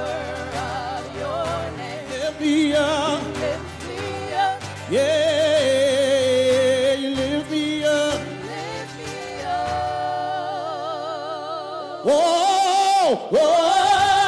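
Live gospel worship song: a praise team of several voices singing long held notes with vibrato over acoustic guitar, swelling louder near the end.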